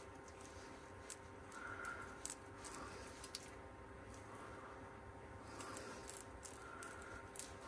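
Faint handling sounds of a stir stick spreading epoxy resin over a silicone crystal inlay held in gloved fingers: a handful of scattered small clicks and soft sticky taps over a low steady room hum.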